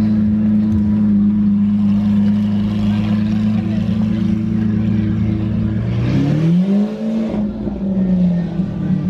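Lamborghini Aventador LP700-4's 6.5-litre V12 running steadily at low revs as the car creeps forward. About six seconds in it revs briefly, rising in pitch with a rasp from the exhaust, then drops back.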